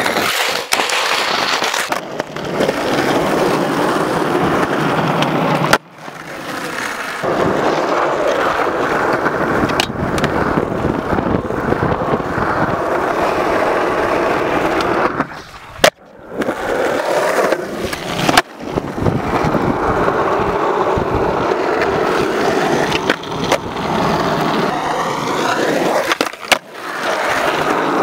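Skateboard wheels rolling on rough asphalt, with several sharp clacks of the board being popped and landing. The rolling noise drops out suddenly a few times.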